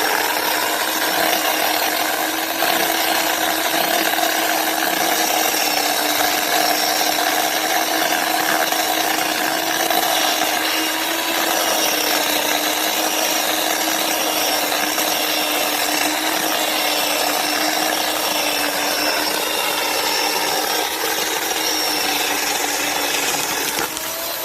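Chainsaw running at a steady high speed, cutting into a tree trunk.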